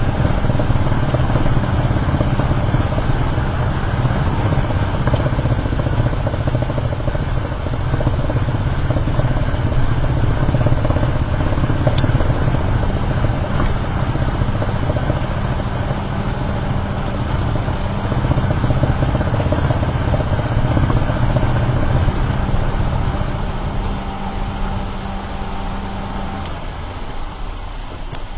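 Perodua Myvi being driven, heard from below the car: steady tyre and road rumble with a drivetrain hum that stops near the end as the noise eases off.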